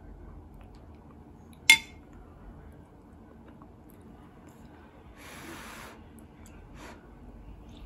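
A spoon is set down against a ceramic plate with one sharp, ringing clink. About three seconds later there is a second of soft rustling as a boiled cabbage-leaf wrap is folded and lifted.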